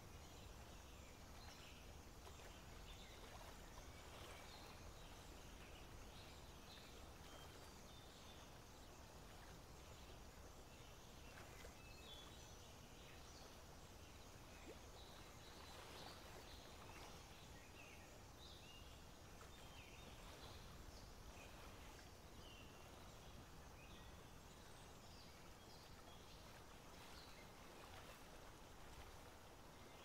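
Faint outdoor ambience: a low steady rumble with scattered short, high chirps from small birds throughout.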